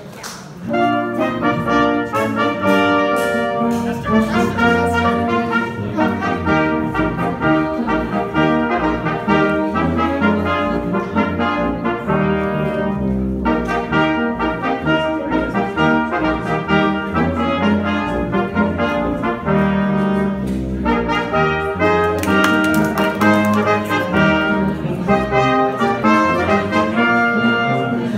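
Band music led by brass, trumpets and trombones to the fore, starting about half a second in.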